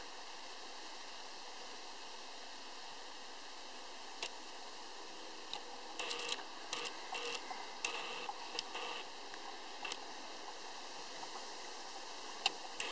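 Red squirrel gnawing at the green plastic lid of a peanut butter jar: short scratchy clicks and scrapes in little bunches, most of them around the middle, over a steady hiss.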